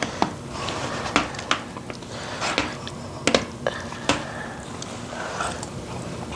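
Metal cutlery clinking and scraping against a plate while scooping rice, with sharp irregular clicks a second or so apart.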